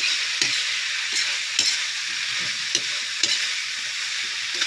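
Wild pig meat with peppers and tomatoes sizzling in a hot metal wok, with a spatula scraping and clinking against the pan again and again as it is stirred.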